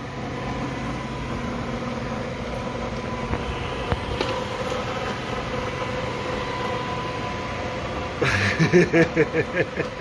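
Robot vacuum running: a steady whirr of its motors with a thin, even whine. About eight seconds in, a louder, quickly pulsing sound lasts a second or two over it.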